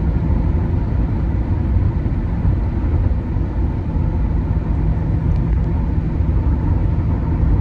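Steady low road and engine rumble of a moving vehicle, heard from inside the cabin.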